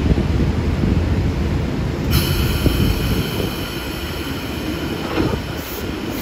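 Sydney Trains double-deck electric train with camshaft-controlled traction motors pulling out slowly, a heavy low rumble of motors and wheels. About two seconds in, a steady high-pitched ringing tone sets in over the rumble.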